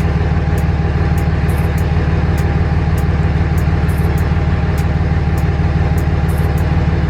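A third-generation Cummins inline-six turbodiesel idling steadily, with a faint, regular ticking over the engine note.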